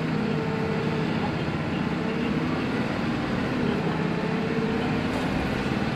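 Mitsubishi Fuso QKG-MP38FK city bus's diesel engine and drivetrain running while the bus drives, heard from inside the bus, with an engine tone that swells and fades several times.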